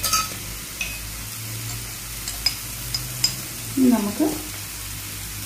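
Clam meat roasting in masala in a nonstick frying pan: a steady sizzle, with a spatula clicking and scraping against the pan several times. A low steady hum runs under it.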